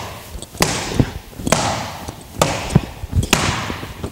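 A steel bar swung repeatedly into a hanging heavy bag: four sharp smacks about a second apart, with duller thuds in between.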